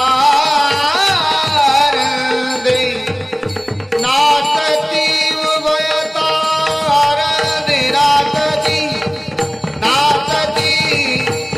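Varkari bhajan: a devotional Marathi melody, sung with a wavering, gliding line over a steady drum-and-percussion rhythm.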